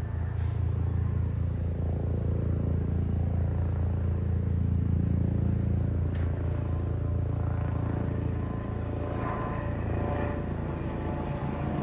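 Helicopter rotor and engine running, a steady low throbbing, with a higher engine tone rising over the last few seconds.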